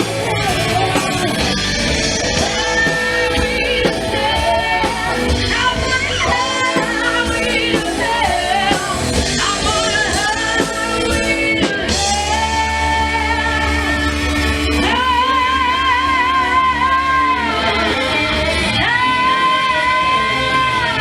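A band playing live with a lead singer. From about halfway the voice holds long notes with vibrato over a heavy bass line, with guitar underneath.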